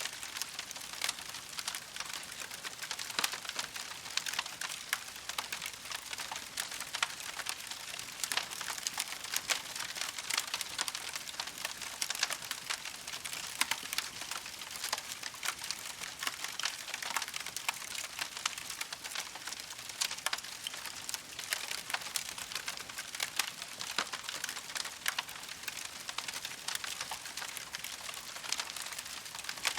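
Campfire crackling steadily, a dense run of small sharp pops and snaps over a soft hiss.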